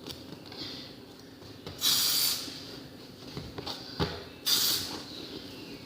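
Slime being poked and squeezed by hand: two short hissing squelches about two and a half seconds apart, with small sticky clicks between them.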